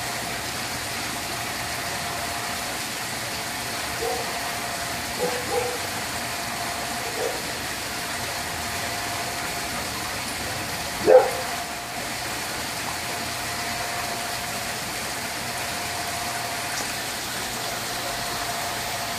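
Steady mechanical hum with a constant tone running throughout. A few short, sharp calls sound over it, the loudest about eleven seconds in.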